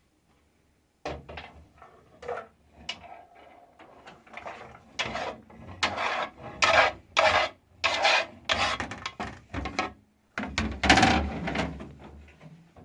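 An irregular series of short scraping or rubbing strokes, growing louder from about five seconds in, with a brief break near ten seconds.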